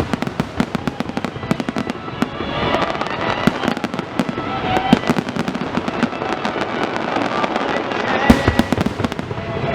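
Fireworks crackling and popping in rapid, dense bursts, with one louder bang about eight seconds in.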